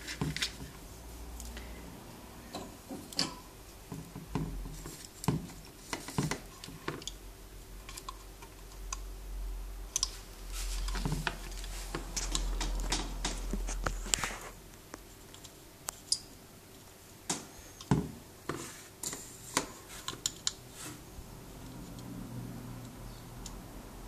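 Irregular small clicks, taps and scrapes of tools and parts being handled inside the aluminium chassis of a Zetagi B300P CB amplifier, as its MRF455 output transistors are fitted.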